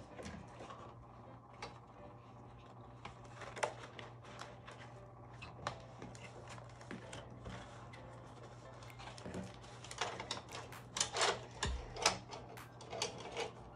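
Light clicks and rustles of a wire-bound notebook being handled, its metal binding wire rattling as the spine is fitted into the jaws of a Cinch wire-binding machine, busier in the last few seconds. A low steady hum runs underneath.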